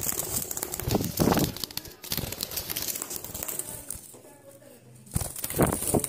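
Budgies fluttering and flapping in a wire cage, a close rustling and bumping full of small clicks, in two bouts: one in the first two seconds and another near the end.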